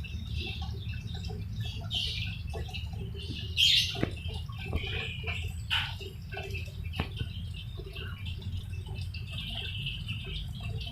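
Birds chirping in the background over a steady low hum, with a few faint clicks.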